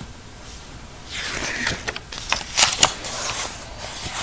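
A picture book being handled and its pages turned: papery rustling with a few crisp flaps and clicks, starting about a second in.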